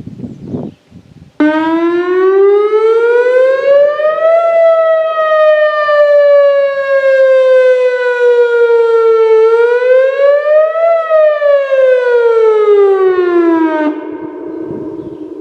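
Whelen WPS 2802 electronic outdoor warning siren sounding its Wail tone. It comes on suddenly about a second and a half in, rises for about three seconds, falls slowly, rises again and falls. About two seconds before the end it drops off sharply to a much fainter tail.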